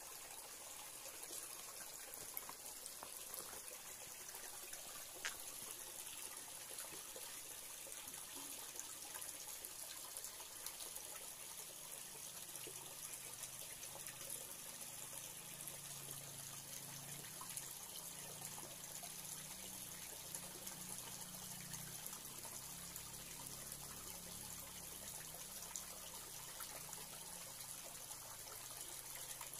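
Shallow rocky stream trickling steadily over and between stones, a faint continuous wash of running water.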